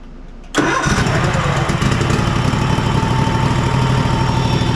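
Cub Cadet Enduro XT2 riding mower's 679cc fuel-injected engine catching almost at once about half a second in, then running steadily. It fires right back up, now that a loose ground connection, which the mechanic takes for the probable cause of lost spark, has been tightened.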